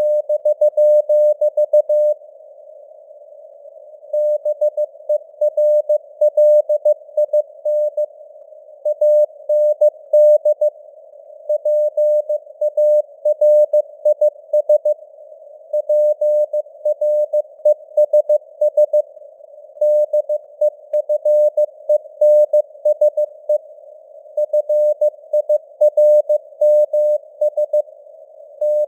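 Morse code sent at 15 words per minute: a single steady tone keyed on and off in dots and dashes, inside a narrow band of simulated radio hiss, with a longer pause between words about two seconds in.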